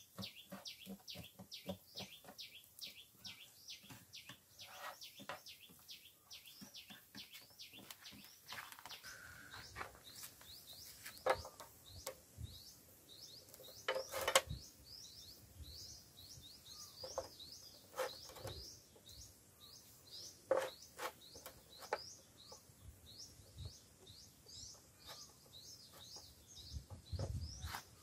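Small birds chirping steadily: short, high, quick chirps, several a second. Now and then a brief clink or scrape of chopsticks against a metal pan.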